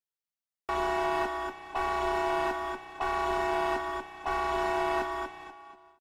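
Multi-tone air horn sounding four blasts, each a chord of several notes held for about a second, the first blast shorter.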